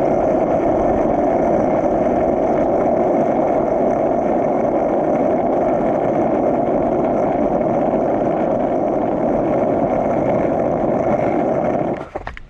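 Skateboard wheels rolling on asphalt during a downhill run: a loud, steady rumble that drops off abruptly near the end as the ride stops.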